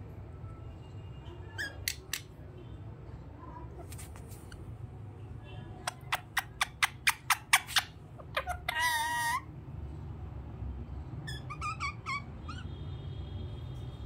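Indian ringneck parakeet making a quick run of about eight sharp clicks, then a short wavering squawk, then a few short chirps.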